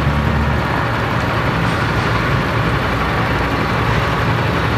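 A heavy vehicle's engine idling with a steady low hum, a little stronger in the first second, over a constant hiss.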